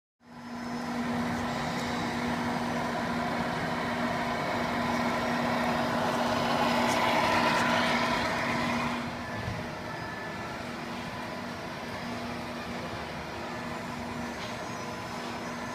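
Radio-controlled Scania R470 model truck driving, with a steady engine-like hum. It grows louder as the truck passes close by, then drops about nine seconds in as it moves off across the floor.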